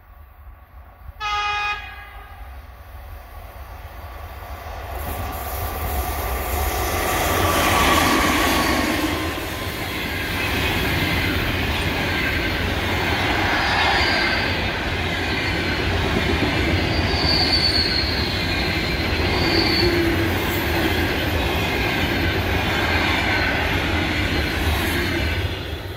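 An EP2K electric locomotive gives one short horn blast about a second in. The locomotive and its passenger coaches then approach and pass close by, with a loud steady rolling noise from the wheels and a few brief high-pitched wheel squeals. The noise drops suddenly near the end as the last coach goes past.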